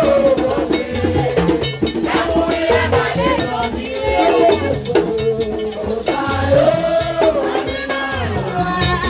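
A crowd singing a Haitian Vodou song together over a steady drum rhythm.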